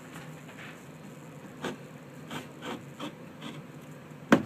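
A knife blade scraping at the cut edge of a drywall opening in a few short, separate strokes, then one sharp knock near the end.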